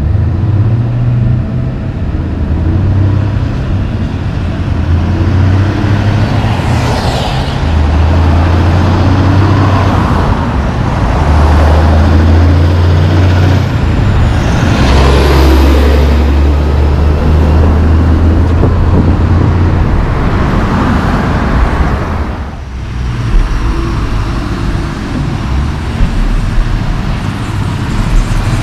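Loaded logging truck's diesel engine pulling hard as it comes up and passes, its engine note dropping and rising in steps through several gear changes. After a sudden break about three-quarters of the way in, another logging truck, running empty with its trailer loaded on the tractor, passes.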